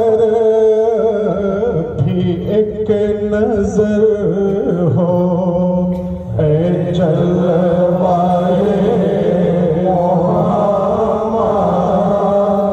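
A man's voice chanting a supplication through a PA system in long, wavering melodic lines, over a steady low hum. The chant breaks off briefly a little past the middle and resumes.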